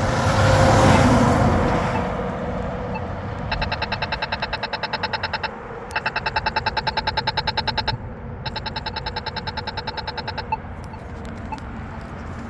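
A vehicle passes loudly in the first two seconds. Then a Polara iNS accessible pedestrian signal push button plays its walk indication: a rapid tick, about ten ticks a second, in three runs of about two seconds each.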